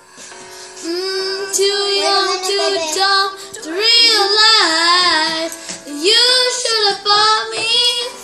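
A young girl singing a slow pop ballad, her voice bending and wavering on long held notes; the singing comes in about a second in.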